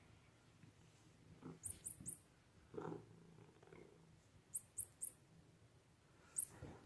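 Domestic tabby cat purring faintly, with two quick runs of three high, metallic jingling clicks, about two seconds in and again at about five seconds.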